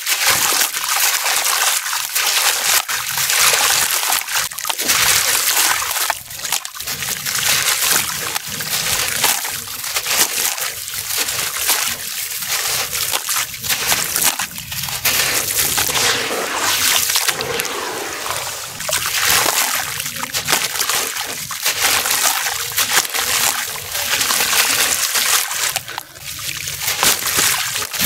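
Hands crumbling a dry, dusty block into a basin of water: a continuous crunching and crackling of the breaking block, with grit and wet crumbs splashing and trickling into the water.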